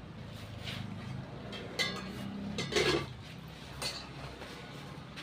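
Kitchen utensils and dishes clinking and knocking, four or five separate clinks with the loudest about three seconds in, over a low steady background hum.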